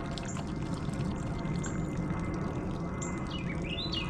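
A dog lapping water, a steady wet sound, with a small bird chirping a quick run of notes from about three seconds in.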